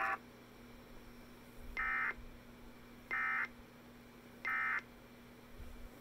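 Emergency Alert System end-of-message signal: three short bursts of the SAME digital data warble, about a second and a quarter apart, marking the end of the National Weather Service alert.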